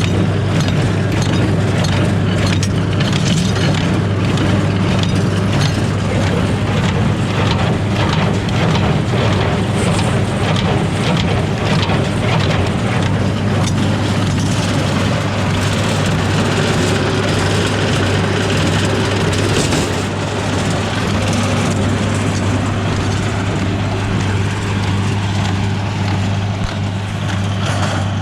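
Diesel farm tractor engine running steadily at constant speed, a loud even hum with a broad mechanical rush over it.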